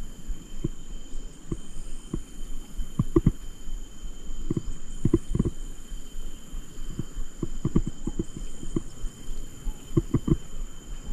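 Irregular dull thumps knocking on the microphone, sometimes in quick clusters, over a steady high whine.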